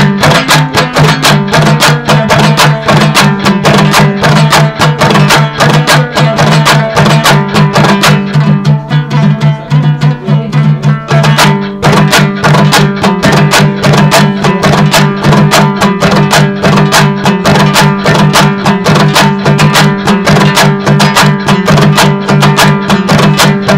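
Instrumental break of Afghan dambura music: a dambura plucked in fast, even strokes over steady low held notes, with a percussion beat and no singing.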